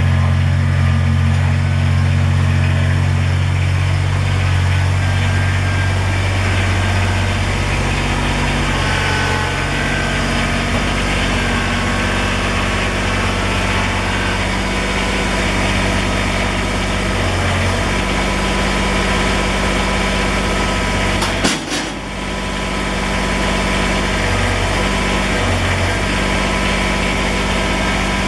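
Kubota BX23S compact tractor's diesel engine running at a steady speed, with one sharp knock about 21 seconds in.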